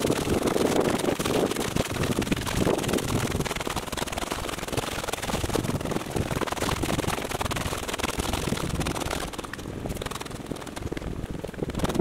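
Hands rubbing and smudging charcoal on a large sheet of drawing paper: a dry, scratchy rubbing noise that eases near the end.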